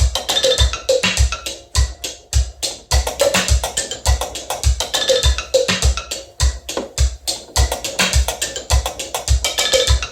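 Homemade mechanical acoustic beat sequencer playing a looping percussion pattern: steady low thumps like a bass drum, several a second, mixed with sharp woody clicks.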